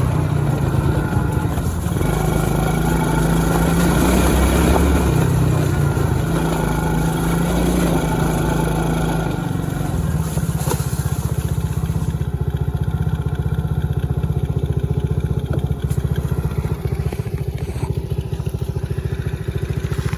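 A kids' 110cc ATV's small four-stroke single-cylinder engine being ridden under throttle. About halfway through it drops to a steady, rapid idle putter.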